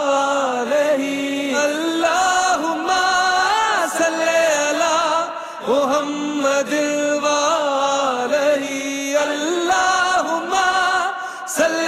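Devotional Islamic vocal music, a hamd/naat: a voice singing a slow, wavering melody.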